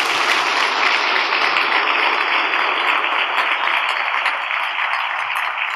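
A large audience of several hundred people applauding a speaker's introduction: dense, steady clapping that eases off slightly near the end.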